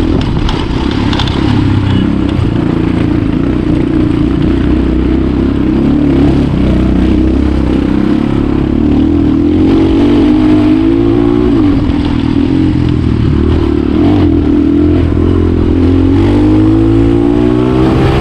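Hero Honda motorcycle with a modified exhaust running while ridden, the engine note rising and falling with the throttle, climbing again near the end.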